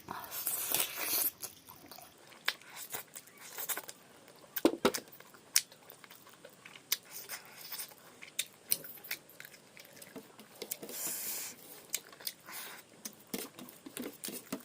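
Close-up eating sounds of a person chewing chicken: irregular wet mouth clicks and smacks with occasional crunchy bites.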